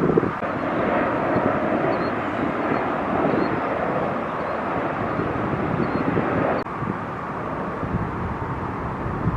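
Jet airliner engine noise heard from the ground, a steady rushing sound that drops off abruptly about six and a half seconds in.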